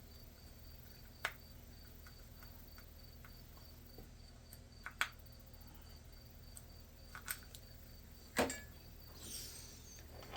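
Cricket chirping in a steady, even high pulse, with a few sharp isolated clicks and taps over it.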